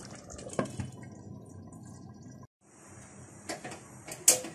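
Rice and chicken simmering in a pan, the liquid bubbling, then a steady hiss with two or three sharp clicks near the end.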